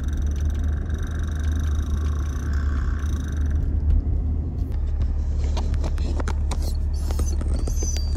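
Car cabin noise while driving: a steady low engine and road rumble, with light clicks and rattles in the second half.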